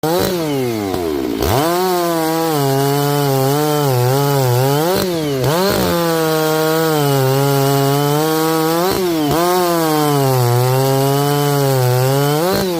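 92cc gas Stihl two-stroke chainsaw cutting through wood at full throttle. Its engine pitch sags and wavers as it labours in the cut, and it briefly revs up and drops back several times.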